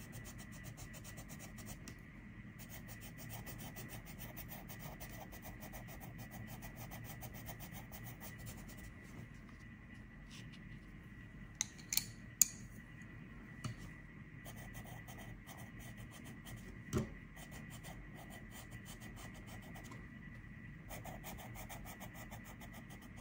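Coloured pencil scratching across paper in quick short strokes, stopping briefly now and then. A few sharp clicks about halfway through as one pencil is set down and another picked up, and a single knock a little later.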